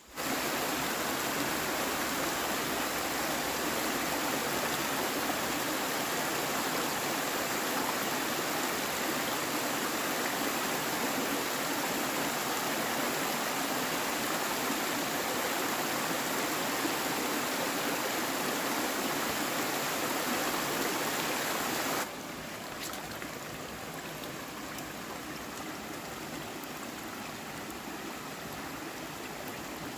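Running water of a stream, a steady rushing sound. About two-thirds of the way in it cuts abruptly to a quieter stretch of running water.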